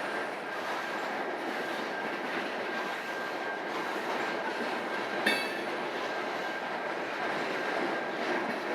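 Train cars rolling past on the rails, a steady clatter and rumble of wheels with a faint steady high squeal. A single sharp metallic squeak comes about five seconds in.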